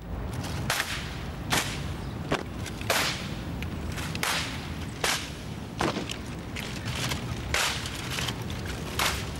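Rifle drill by a ceremonial drill team: sharp slaps and cracks of rifles being handled with gloved hands, roughly one every three-quarters of a second, over a steady low rumble.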